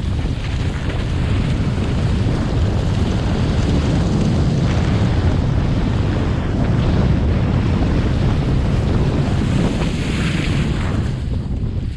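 Wind rumbling on the action-camera microphone while skiing downhill at speed, with the hiss of skis sliding on groomed snow; a sharper scrape about ten seconds in.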